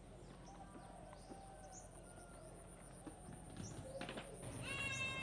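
Faint outdoor ambience with small birds chirping now and then. Over the last second a pitched call with several overtones grows louder.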